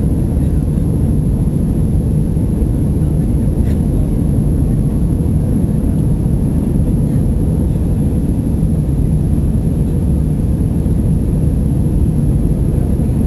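Airbus A320 cabin noise in flight, heard from a window seat: a steady low rumble of engines and airflow, with a faint high whine over it.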